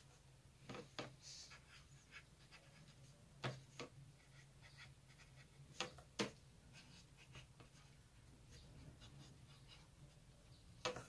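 Faint scratching of a marker drawing on paper, broken by a few soft clicks, some in quick pairs.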